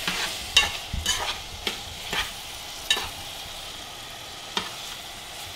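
Metal spoon stirring blueberries in a nonstick saucepan, clicking and scraping against the pan at irregular moments, fewer in the second half. A faint steady sizzle from the sauce heating on the stove runs underneath.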